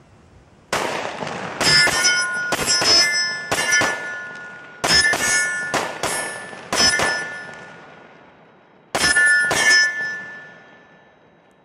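Glock 20 10mm pistol firing a rapid string of about a dozen shots, many as quick follow-up pairs, at steel hard targets; each hit sets the steel plates ringing with a clear bell-like tone that dies away over a second or two. The last pair comes about nine seconds in and its ring fades out.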